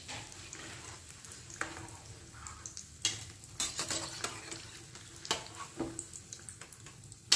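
Batata vadas deep-frying in hot oil with a steady sizzle, while a metal slotted spatula scrapes and knocks against the pan as the fried vadas are lifted out. There are several sharp knocks, the loudest right at the end.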